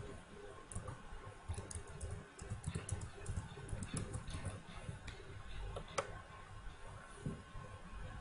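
Computer keyboard typing and mouse clicks: irregular short keystrokes and clicks, several a second in places, over a low background rumble.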